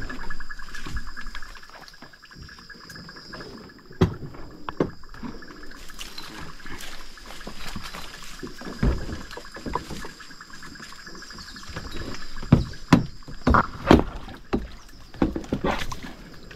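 Knocks and water sounds from a fishing kayak on a lake: irregular thumps against the hull, with the loudest cluster of knocks in the last few seconds.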